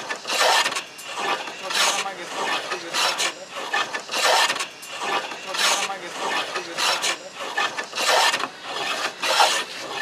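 A hand tool rasping across a block of wood in repeated strokes, about one stroke every 1.2 seconds.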